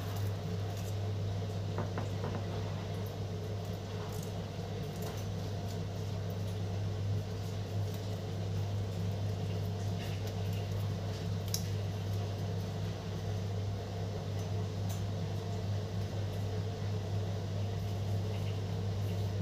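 Steady low electric hum of a running kitchen appliance, with a few faint crinkles of pandan leaves being folded by hand.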